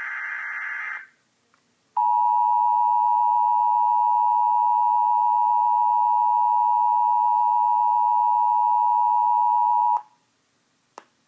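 Emergency Alert System alert tones. The end of the SAME header's digital data burst stops about a second in; after a second's pause, the steady two-tone EAS attention signal sounds for about eight seconds and cuts off sharply. A short click comes just before the voice message.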